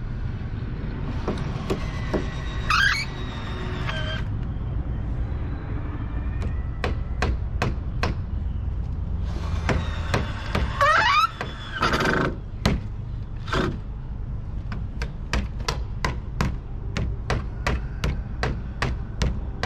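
Hammer driving nails into wooden boards, a run of sharp separate strikes that comes about two to three a second near the end. Twice, about two and eleven seconds in, a longer scraping noise with rising squeaks cuts in, the loudest about eleven seconds in.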